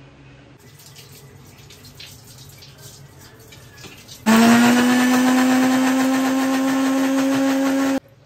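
Electric blender motor switched on about four seconds in, winding up briefly in pitch and then running at a steady high speed, blending banana and sugar for a banana shake; it cuts off suddenly. Faint clicks of handling come before it.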